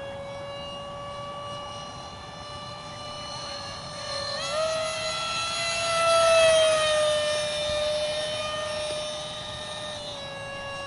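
Electric ducted fan of a 50mm EDF radio-control F-22 Raptor model in flight, a steady high-pitched whine. It jumps higher in pitch about four seconds in, grows loudest as the jet passes close about six seconds in while the pitch slides down, then drops back lower near the end.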